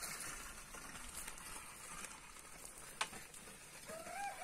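Faint sounds of a pair of oxen drawing a wooden plough through stony hillside soil, with one sharp click about three seconds in and a short call that rises and falls near the end.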